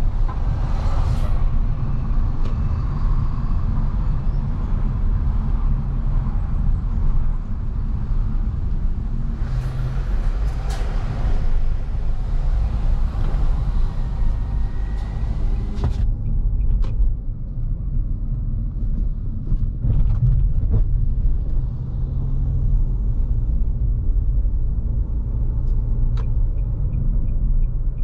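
Nissan Kicks with its 1.6-litre four-cylinder engine being driven, a steady low rumble of engine and road noise. The higher road hiss drops away suddenly about halfway through, and a quick run of light, regular ticks comes near the end.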